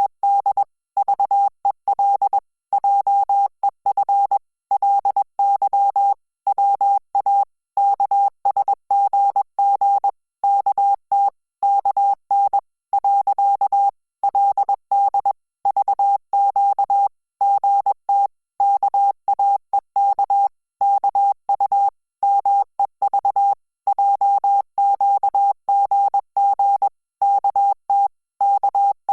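Korean Hangul Morse code sent as a single steady beep tone, keyed on and off in short dits and longer dahs with pauses between characters and words, at about 20 words per minute.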